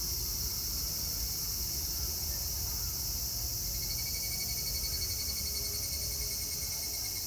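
Cicadas singing in a dense, steady high-pitched chorus. About four seconds in, a second call with a rapid pulsing note joins for a few seconds.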